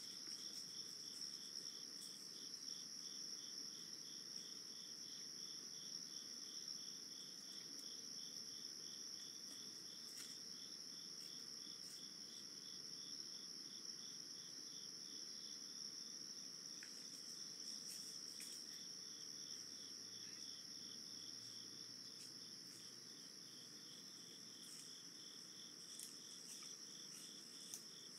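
Faint night insect chorus of crickets: one steady high trill and a second, lower song pulsing several times a second, with a few faint scattered clicks.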